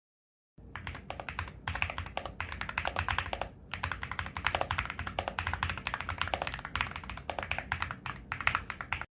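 Fast typing on a LEOBOG Hi75 aluminium mechanical keyboard, a dense run of key clicks that starts about half a second in.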